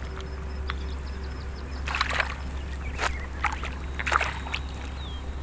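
Lake water splashing and sloshing in a few short bursts, about two to four and a half seconds in, over a steady low rumble.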